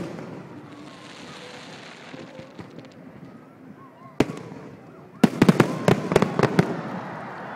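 Aerial fireworks bursting: a hissing crackle in the first couple of seconds, a single bang about four seconds in, then a rapid string of bangs for about a second and a half, dying away in a rumble.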